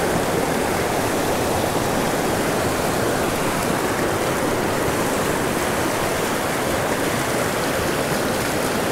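Stream water rushing steadily over rocks in a shallow whitewater riffle.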